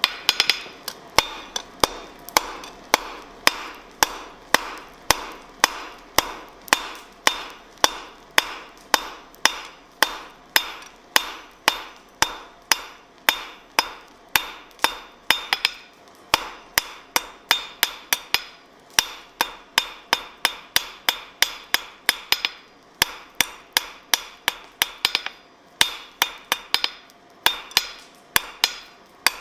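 Hand hammer striking a red-hot steel bar on an anvil in steady blows, about two a second, each blow with a bright metallic ring from the anvil. The rhythm breaks off briefly a few times.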